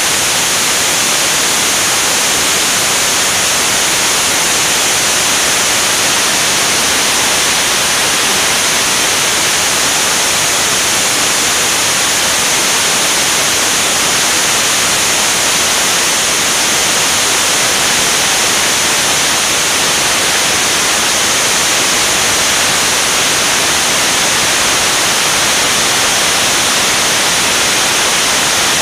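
Steady rush of wind over a camera mounted on an aircraft's wing in flight: a loud, even hiss, strongest in the high range, with no engine note standing out.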